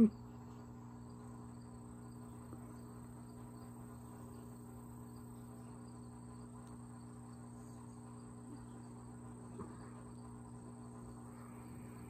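Quiet pause between snores: a low steady hum with a faint high, cricket-like trilling over it, and one small click near the end; no snore is heard.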